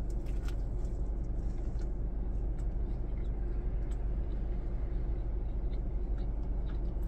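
Steady low rumble inside a car cabin, with faint wet clicks of a burger being bitten and chewed.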